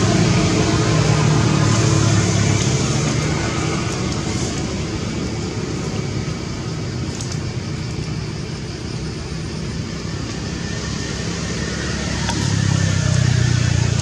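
Motor vehicle traffic: steady road noise with an engine's low hum that swells near the start and again near the end.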